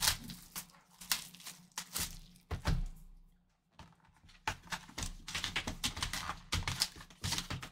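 Plastic shrink wrap crinkling as it is peeled off a cardboard trading-card box, mixed with light knocks and taps of the box being handled. There is a short lull about three seconds in, and the crinkling is denser near the end.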